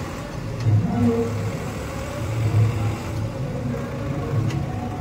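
Swaraj tractor diesel engines running hard under heavy load, towing in tandem to drag a loaded trolley through wet mud. The engine note swells and eases several times as they pull.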